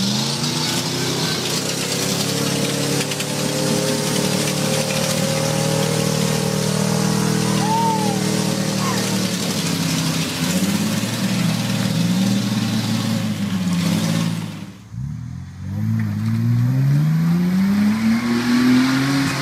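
Off-road 4x4 truck engines running hard in deep mud, the revs rising and falling several times. After a brief drop another engine revs steadily upward near the end.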